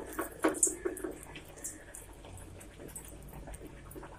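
A hand squishing and scooping toor dal vada batter in a steel bowl, with a run of soft wet clicks in the first second and a half that then thins out. Underneath, vadas sizzle faintly in hot oil.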